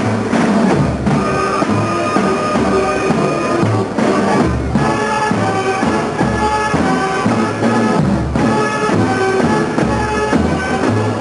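High school marching band playing: brass holding chords over steady bass drum and percussion beats.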